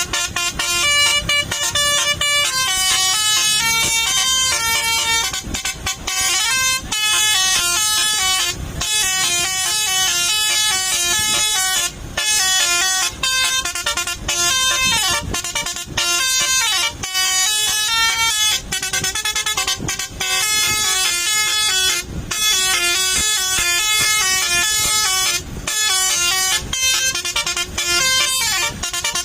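Tour bus's basuri musical air horn playing telolet tunes: quick runs of stepped horn notes, repeated phrase after phrase with short breaks between them.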